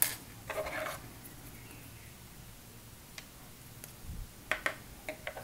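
Faint rustling and light clicks of hands handling crocheted yarn pieces and drawing a sewing thread through them, with a cluster of clicks about four and a half seconds in.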